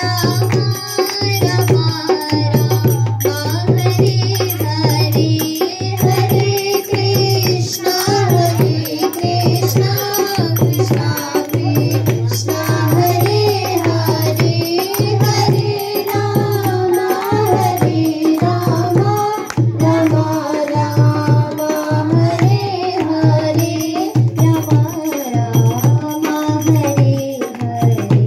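A group of girls sings a Hindu devotional kirtan, one voice carried through a microphone. A two-headed barrel drum (dholak) keeps a steady beat, with hand clapping.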